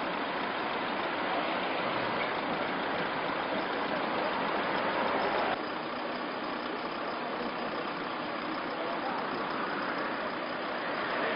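Steady vehicle engine noise, even and unbroken, stepping down slightly in level about five and a half seconds in.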